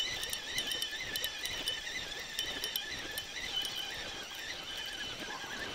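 Steady high-pitched chirring of insects, with faint quick ticking from a fishing reel being wound in on a hooked fish.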